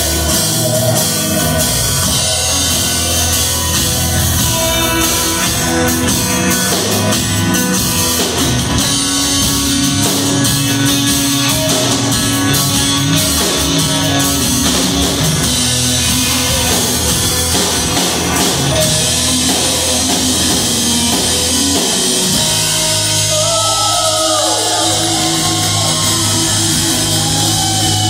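A rock band playing live and loud, with guitars, bass and a drum kit. Near the end the drums drop back and held notes with pitch bends come to the fore.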